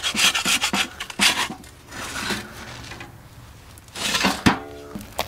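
Metal spatula scraping across a fireclay baking stone in several strokes as a flatbread dough is pushed onto it, with a sharp knock about four and a half seconds in.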